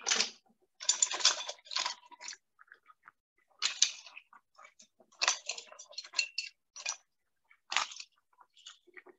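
Crab legs being handled and dropped into a pot: hard shells clattering and crackling against each other and the pot's rim in a series of short, irregular bursts.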